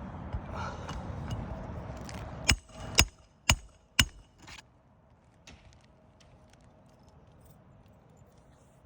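Four hammer strikes on metal, about half a second apart, each leaving a short metallic ring: nails being driven into asphalt roof shingles with a hammer and a roof snake. Rustling handling noise comes before the strikes.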